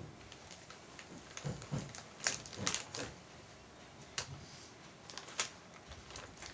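Clear plastic zip-lock bag being handled and its seal pressed shut: crinkling plastic with a string of sharp clicks, the loudest a little over two seconds in and again around five seconds.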